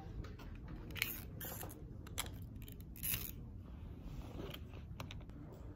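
Cheap sunglasses being handled, their plastic frame giving a handful of short scraping clicks.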